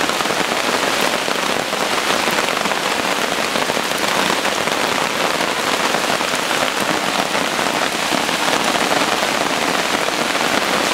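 Heavy rain falling steadily on a tarp shelter and the surrounding woodland, an even, unbroken patter.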